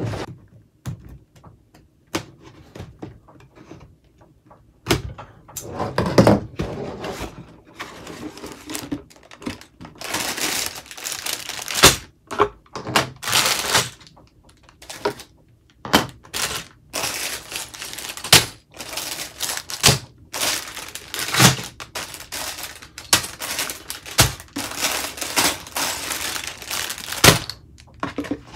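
Plastic LEGO pieces clicking and clattering as they are handled and pressed together, with stretches of rustling and crinkling.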